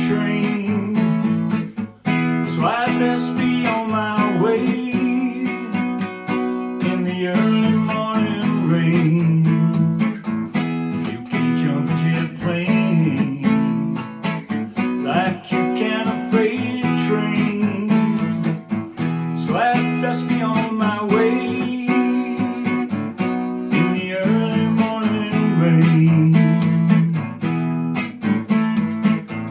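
Acoustic guitar strummed and picked in a steady folk rhythm: the instrumental close of the song after the last sung line.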